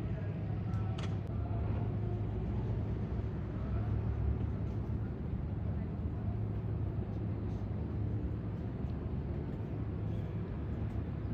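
Steady low outdoor background rumble, with faint distant voices near the start.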